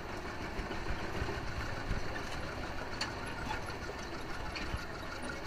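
Farm tractor engine running steadily, a low rumble heard from the wagon it is towing.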